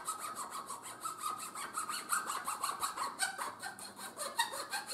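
A fine-toothed razor saw cutting through a thin wooden dowel in quick, even back-and-forth strokes, several a second, with a dry rasping sound. The strokes stop at the end as the cut goes through.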